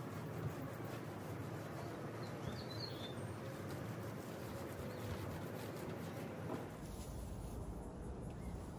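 Quiet outdoor ambience: a steady background hiss with a brief, faint bird chirp about two and a half seconds in.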